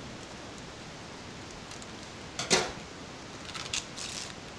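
Plastic bag crinkling as it is pulled open and off a wrapped sheet of udon dough, with one sharp loud crack about halfway through and a few smaller crinkles near the end.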